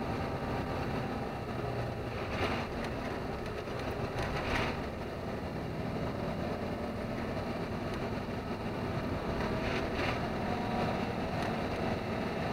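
Truck engine running steadily, heard from inside the cab, with tyre noise from a gravel road. Three brief clatters come through, at about two and a half, four and a half and ten seconds in.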